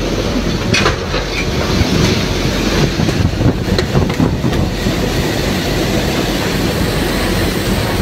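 Strong storm wind from a waterspout buffeting the microphone, a loud, steady low rushing rumble, with a couple of short clatters about a second and about four seconds in.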